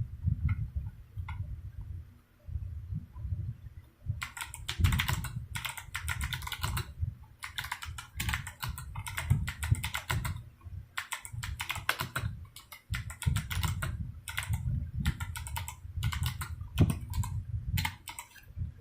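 Typing on a Drop CTRL high-profile keyboard with Kailh Box Jade clicky switches and PBT keycaps: a few scattered keystrokes, then from about four seconds in fast runs of sharp clicks with short pauses between them.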